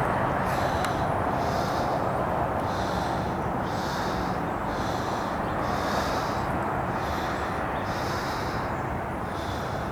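Freight cars of a CSX mixed freight train rolling past, with a steady rumble of steel wheels on rail and a regular higher hiss that comes and goes about once a second.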